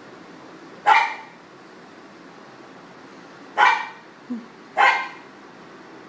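A pug barking: three sharp single barks, one about a second in and two close together near the end, with a short low sound between the last two.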